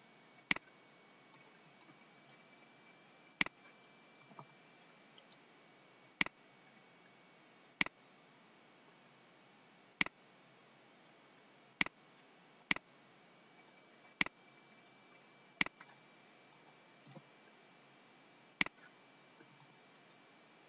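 Computer mouse clicking: about ten single, sharp clicks at irregular intervals of one to three seconds, over a faint steady hiss.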